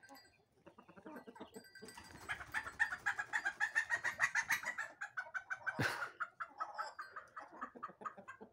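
A flock of chickens clucking while they feed, a busy run of short calls that swells about two seconds in. Just before six seconds in there is a single sharp noise.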